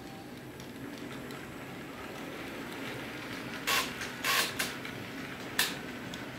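Model freight train running along the track with a steady rolling hum, broken by a few short, loud clacks about halfway through as the wagons cross the points.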